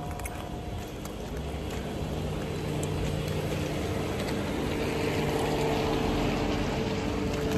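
Street traffic on a rain-wet road: a vehicle engine hums steadily and grows gradually louder over an even hiss of rain and tyres.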